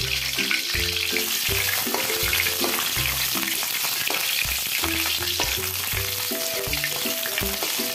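Lemongrass, galangal and bay leaves sizzling and crackling in hot oil in a metal wok, stirred with a perforated metal spatula.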